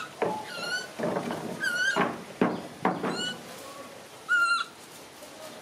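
Baby macaque giving several short, high-pitched squeaking calls, mixed with a few sharp knocks of the plastic toy dump truck being pushed and bumped on the wooden tabletop.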